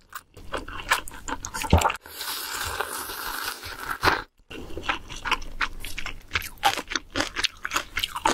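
Close-miked eating of ramen noodles: wet chewing clicks, then a long slurp of noodles and broth from a spoon lasting about two seconds, then more rapid chewing.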